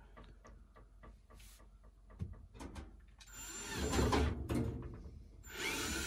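Cordless drill being handled with small clicks and rattles, then running for about two seconds, starting a little after three seconds in, as it drives a screw.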